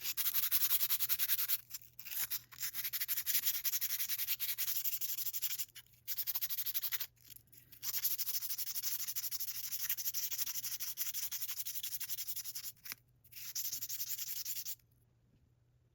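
Hand-abrading a rusty metal tool with fast back-and-forth rubbing strokes, a scratchy hiss coming in several passes with brief pauses and stopping near the end.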